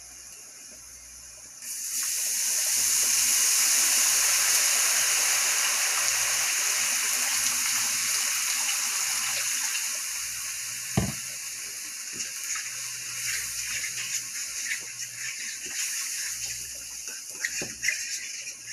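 Liquid poured from a plastic measuring pitcher into a skillet of onions: a steady splashing pour that starts suddenly about two seconds in and slowly tapers off. A single knock comes near the middle, then a spoon scrapes and clinks in the pan as the gravy is stirred near the end.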